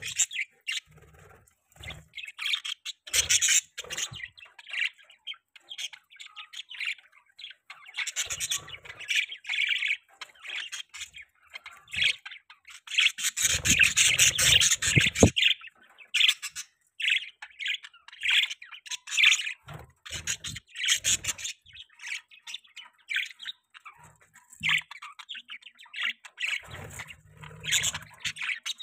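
Budgerigars chirping and chattering in quick, short calls, with a denser, louder stretch of chatter about halfway through.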